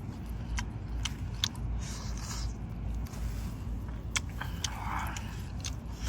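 Close-up eating sounds: chewing cooked seafood, with a few sharp clicks and cracks scattered through, over a steady low rumble.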